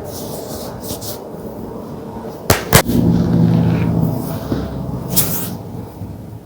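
Two sharp joint cracks in quick succession during a chiropractic adjustment, a little over two seconds in, followed by a long held voice sound and another brief sharp noise about five seconds in.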